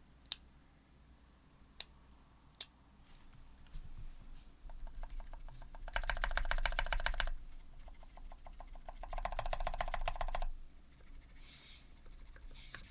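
Typing on a custom Square 60 mechanical keyboard with H1 switches, an aluminium plate and GMK keycaps. A few single keystrokes first, then quicker typing that builds into two loud, fast runs of key presses, the first about six seconds in and the second about nine seconds in.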